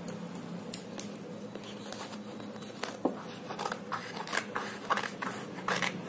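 Small scissors snipping through thin card along a curved line, a run of short cuts that come more often from about halfway through.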